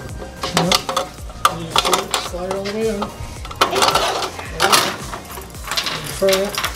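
Steel coin box being handled and slid back into a Speed Queen commercial washer's coin vault: a quick run of metallic clicks, clanks and rattling quarters.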